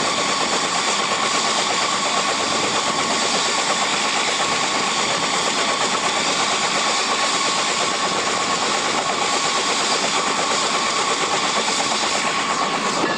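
Bell 206L LongRanger helicopter idling on the ground with its rotor turning: a steady high turbine whine over a fast, even rotor chop.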